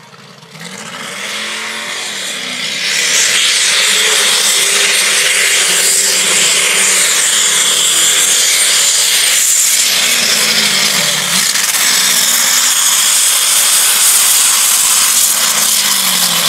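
Modified-class pulling tractor engine building up over the first three seconds to full throttle, then running loud and flat out with a wavering pitch as it hauls the weight-transfer sled down the track.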